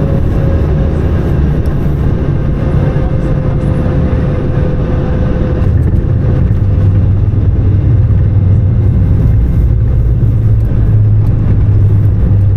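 Airbus A220-300 cabin noise during landing: its Pratt & Whitney geared turbofans and the airflow make a loud, steady rumble with a thin engine tone that slowly falls in pitch. About halfway through the hiss fades and a deeper low rumble grows louder.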